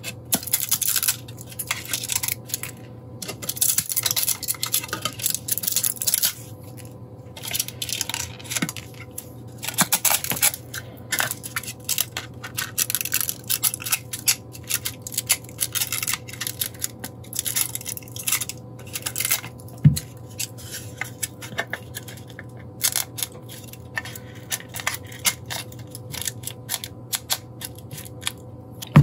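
Support material being pried and broken off a 3D-printed plastic enclosure with small hand tools: irregular scraping, crackling and clicking of plastic, with one sharper snap about two-thirds through.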